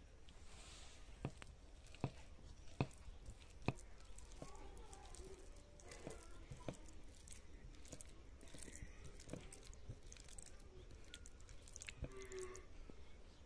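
Faint, scattered clicks and soft wet squishing of fingers mixing rice and curry on a ceramic plate while eating by hand, with the clicks mostly in the first few seconds.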